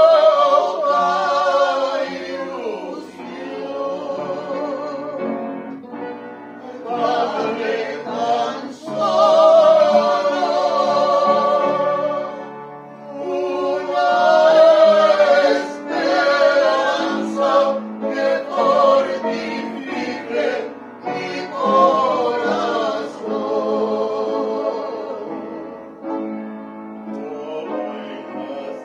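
A small group of older women's and men's voices singing a slow Mexican ballad with vibrato, accompanied by an upright piano. The singing comes in long phrases separated by short breaths.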